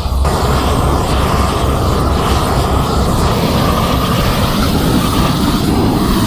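Propane weed-burner torch burning steadily, a continuous rushing flame noise.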